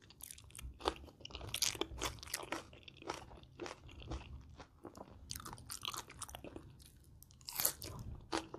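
Close-miked chewing of Thai spicy shrimp salad, raw and blanched shrimp with fresh vegetables, eaten by hand: many irregular crisp crunches with wet mouth sounds.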